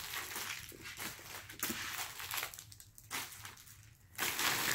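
Plastic candy wrappers crinkling and rustling as handfuls of wrapped candy are picked up and dropped onto a pile, in short irregular bursts with a quieter gap past the middle.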